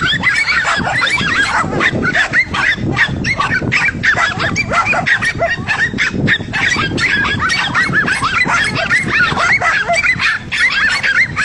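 Several dogs barking and yelping at once, short overlapping calls forming a continuous din.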